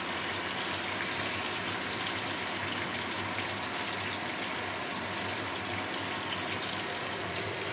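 Potato chunks frying in hot oil in a kadai: a steady, dense sizzle with fine crackling throughout.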